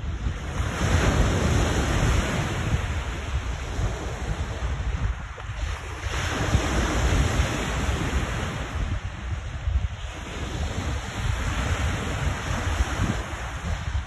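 Lake Ontario waves crashing on the shore, the surf swelling loudest about a second in and again around six seconds, with strong wind buffeting the microphone as a low rumble.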